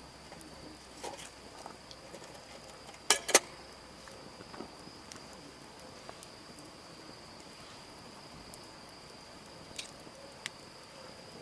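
A steady high insect trill, with scattered small clicks and two sharp knocks close together about three seconds in.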